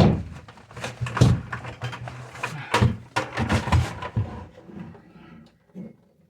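Irregular knocks and clanks from hand work on copper water pipe and tools, loudest right at the start and about a second and three seconds in, then dying away after about four and a half seconds.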